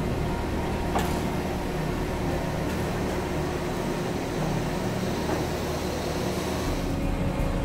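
Steady machinery hum and fan-like noise from a Panama Canal mule, the electric locomotive that steadies ships in the locks, with a sharp click about a second in.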